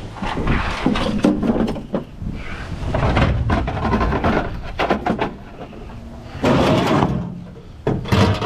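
Scrap being pulled and shifted by hand: a run of irregular knocks, clanks and scraping rattles, loudest about three seconds in and again near the end, over a steady low rumble.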